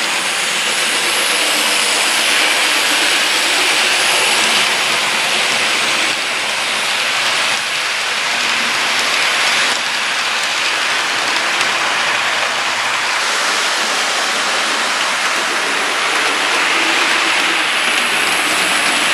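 HO scale model passenger train running on its track: a steady hiss and whir of the small wheels and motor, with small shifts in level every few seconds.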